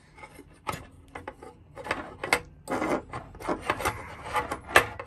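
Folding stainless-steel pot-support arms of a portable gas camping stove being swung open by hand: a run of irregular metal clicks and short scrapes, the loudest near the end.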